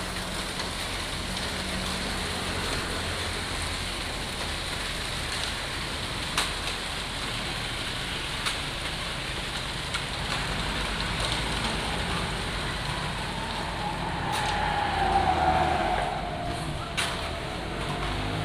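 Hoes and rakes scraping and dragging through wet concrete, with a few sharp knocks of the tools, over steady road traffic. About fifteen seconds in, a passing vehicle grows louder, its engine note falling as it goes by.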